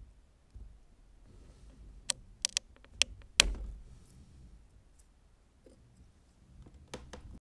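3D-printed plastic cracking and snapping as a printed piece is prised off the printer bed and its support material broken away: a quick run of sharp cracks about two to three and a half seconds in, the loudest at the end of the run, then a few more snaps near the end, with rubbing and handling of the plastic in between.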